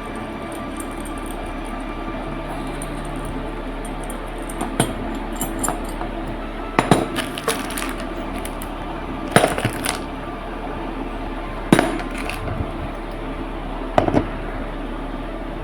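Small metal parts of a sliding-door hanging-wheel roller clinking and knocking together while it is assembled with its plate, screw and nut: a handful of sharp clinks a second or two apart, some in quick pairs, over a steady hum.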